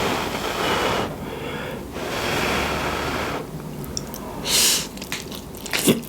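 A person slurping up spaghetti in two long, wet, airy sucks, followed by a short sharp hiss and a few mouth clicks while chewing.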